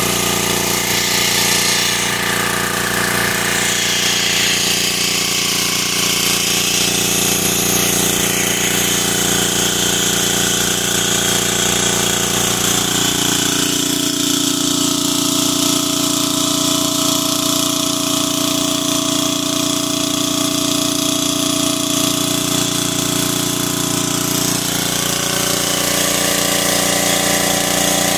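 A 5000-watt GB5000 portable generator's engine running steadily while powering the house through its twist-lock outlet. Its tone shifts slightly about halfway through.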